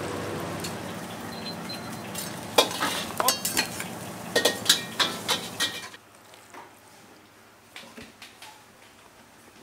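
Oil sizzling in a wok as coated pieces deep-fry. A metal utensil is worked in the wok with a run of sharp metal clinks for about three seconds; about six seconds in it goes much quieter, with only a few soft knocks.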